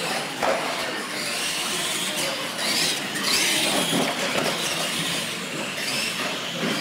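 Radio-controlled monster trucks racing on a concrete floor: motors and gears whining up and down with the throttle, tyres scrubbing, and knocks as the trucks come down off the ramps.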